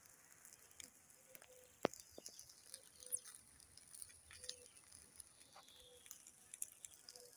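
Chicken grilling over hot charcoal: faint, irregular crackling and spitting clicks as fat drips onto the coals, with one sharper pop a little under two seconds in.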